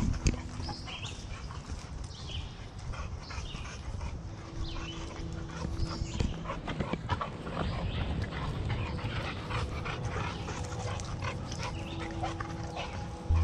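Footsteps and rustling on a dirt forest trail, with a dog panting close by and many small scuffs and clicks.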